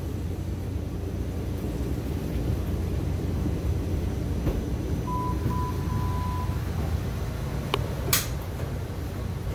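Steady low rumble inside a light rail car. About five seconds in come a few high electronic beeps, two short and then one longer, followed by two sharp clicks near the end.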